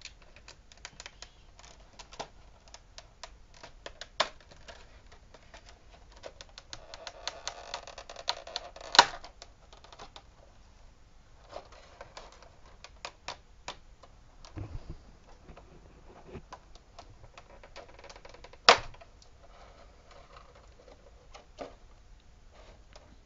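Stiff clear plastic blister packaging being handled and pried open: a scatter of small clicks and crinkles, with two loud sharp snaps, one about nine seconds in and another near nineteen seconds.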